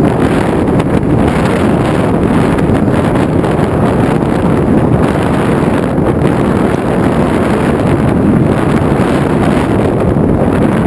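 Steady, loud wind rush buffeting the microphone, with no distinct tones or events.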